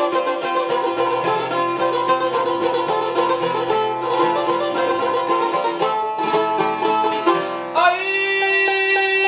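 Albanian çifteli and sharki lutes playing a fast plucked instrumental passage with rapidly repeated notes. Near the end a voice comes in on one long held note.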